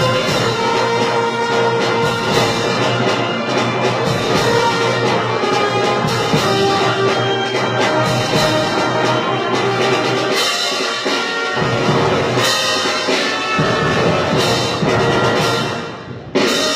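A wind band of brass and woodwinds with drums playing a march, loud and steady. The sound dips briefly near the end, then comes back in.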